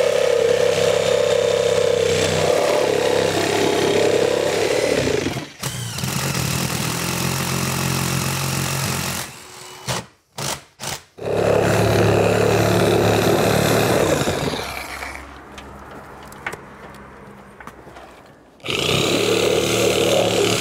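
Corded drill boring holes through vinyl siding and the wood wall behind it, running in long stretches broken by a few short trigger pulses and pauses. Near the end a reciprocating saw starts cutting between the drilled holes.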